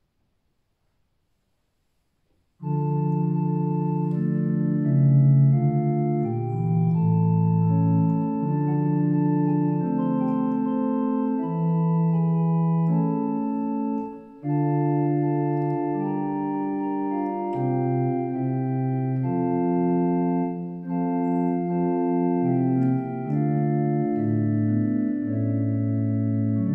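Church organ playing the closing voluntary in slow, held chords. It starts after a couple of seconds of silence and pauses briefly about halfway through.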